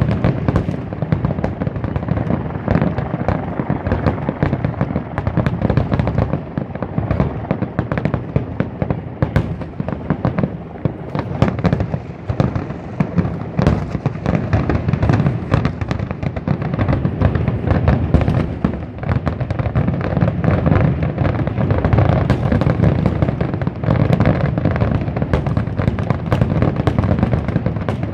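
Aerial fireworks shells bursting in a rapid, unbroken barrage: overlapping booms and sharp cracks with no pause between them.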